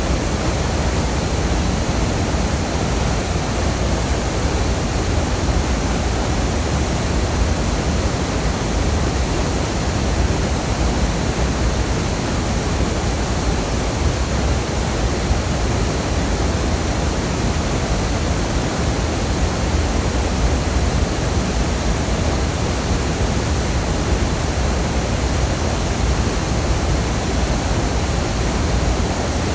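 Waterfall: falling water makes a loud, steady rushing noise, heaviest in a deep low rumble.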